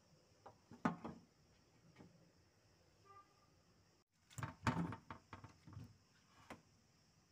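Scattered light knocks and clunks of household handling: one sharp knock about a second in, then a busier run of knocks and rattles from about four and a half to six seconds in, and one more knock near the end.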